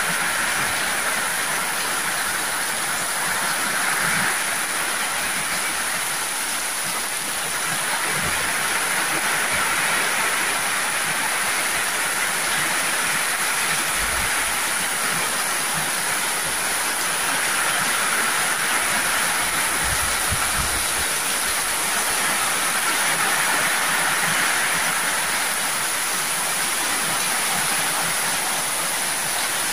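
Heavy downpour: a steady rush of rain falling and pouring off the edges of corrugated metal roofs.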